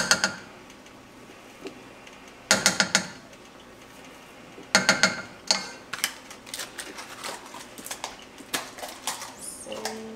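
Kitchen utensils clinking and clattering, a metal spoon knocking against a dish. It comes as a quick bunch of ringing clicks about two and a half seconds in, another around five seconds, and then a longer run of lighter clicks.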